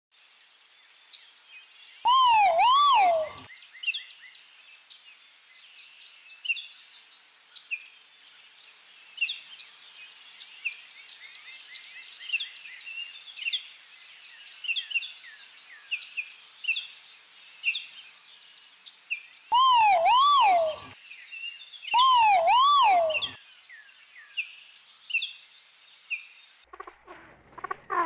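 Great argus pheasant calling: three loud two-note calls, each note rising then falling, one near the start and two close together near the end. Behind them runs a steady high hum with many short bird chirps of forest ambience.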